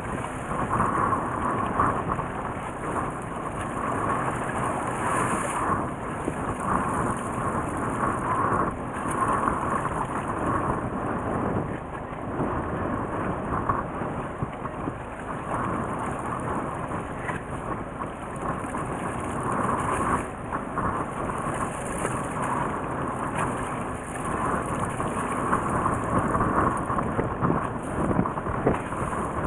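Steady rumbling noise aboard a small fishing boat at sea, a mix of engine, water and wind on the microphone, with no distinct events.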